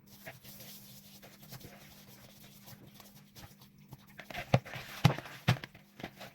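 Hands rubbing oil and mixed herbs into a raw pork shoulder joint, a soft rustling and squishing, with three sharp knocks in the second half.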